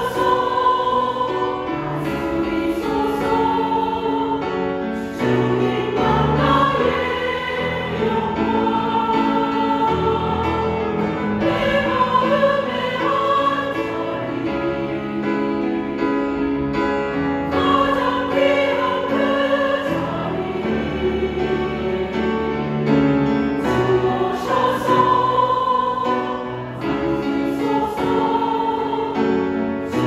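Women's choir singing a hymn in sustained parts, with piano accompaniment.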